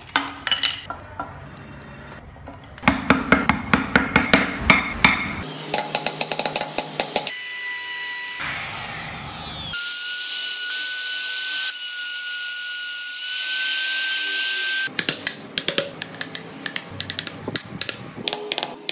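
Electric trim router running with a steady high whine for about five seconds in the middle, cutting slots into a wooden block. Before and after it come rapid sharp taps of hand carving, a gouge cutting into the wood.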